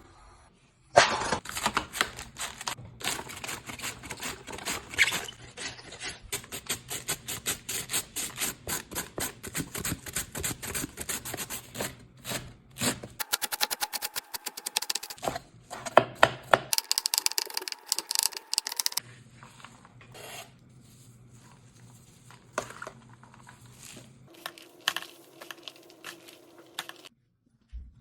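Rapid, dense strokes of kitchen food preparation, as of vegetables being cut or shredded on a board. They run for most of the first two-thirds, then give way to quieter, scattered handling clicks.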